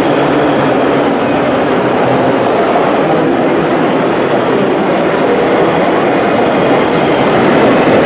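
Steady, vehicle-like running noise from radio-controlled model construction vehicles (scale tipper trucks and a dozer) working on a gravel and earth layout. It holds at an even level with no single sound standing out.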